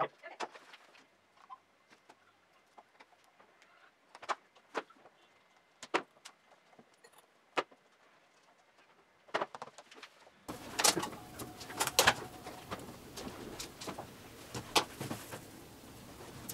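Scattered sharp clicks and taps of small parts and pliers being handled at a table while a propeller is fitted onto a motor mount. About ten seconds in, a steady background hiss begins and the clicks come more often.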